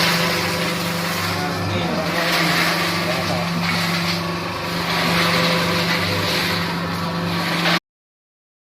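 Spice-mixing machine running with a steady hum over a rushing noise. The sound cuts off suddenly near the end.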